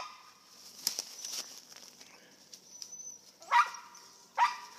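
Squirrel dogs barking: a bark right at the start, fainter ones about a second in, and two loud, sudden barks about a second apart near the end.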